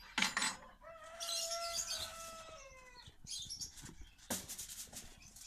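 Metal baking tray scraping and clattering as it is slid out over the floor of a wood-fired brick oven, followed by a long pitched tone lasting about two seconds, then a couple of knocks as the tray is handled.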